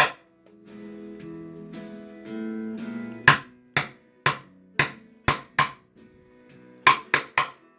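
Acoustic guitar played without singing: held chord notes ring through the first three seconds, then sharp strummed chords follow, six of them about half a second apart and three more in quick succession near the end.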